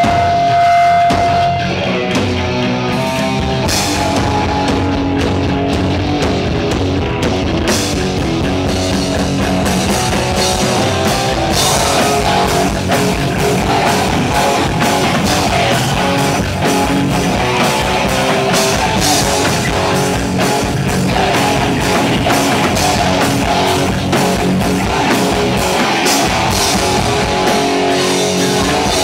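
Punk band playing live at full volume, with distorted electric guitar, bass guitar and drum kit. A single high note is held for the first second or two, then the full band plays a driving beat.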